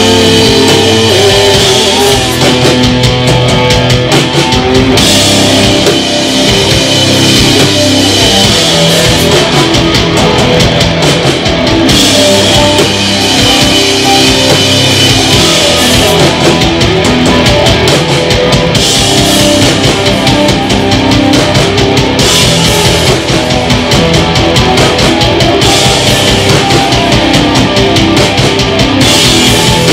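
Live rock band playing loudly: a drum kit and distorted electric guitars in a heavy, driving song.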